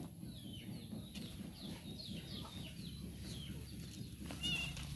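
Chicks peeping: a run of short, high, falling peeps, about two a second, over low rustling and handling noise.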